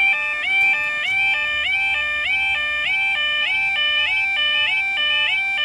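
UK level crossing yodel alarm sounding while the road barriers lower: a loud two-tone warble that swoops up and drops back in a rapid, even repeat.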